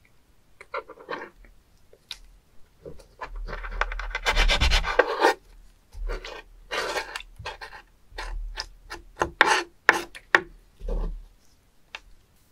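Kitchen knife scraping and cutting across a wet wooden cutting board as a spoon worm (penis fish) is slit open and cleaned out. A long rasping scrape comes about four seconds in, with shorter scrapes and taps of the blade after it.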